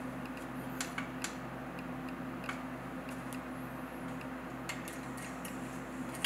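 A few light, scattered clicks and taps from hands on a DJI Phantom 3 drone as it is switched on, over a faint steady hum.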